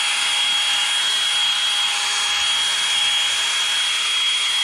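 Cordless drill spinning a wire brush against the centre of a Farmall C tractor's flywheel, a steady whirring scrub of wire on metal as the flywheel is cleaned during a clutch job.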